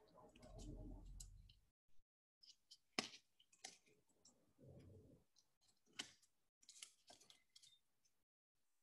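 Faint handling noise at near-silent level: scattered soft clicks and brief rustles from nitrile-gloved hands wrapping a rubber band around rubber tubing, with one sharper click about three seconds in.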